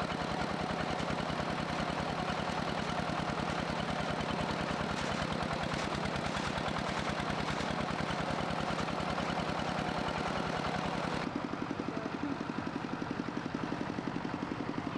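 A small engine running steadily with a fast, even chugging; about eleven seconds in, the sound changes abruptly and becomes thinner.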